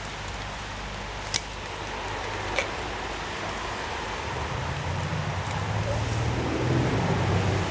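Steady outdoor background hiss with a low hum that grows louder in the second half. Two light clicks come about a second and a half in and again about a second later.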